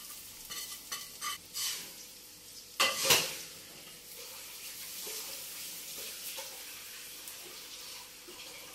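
Egg bhurji sizzling in a frying pan on a gas hob. In the first couple of seconds there are clinks and scrapes as a bowl of fried kababs is emptied into the pan, with a louder scrape or clatter about three seconds in. After that the pan sizzles steadily.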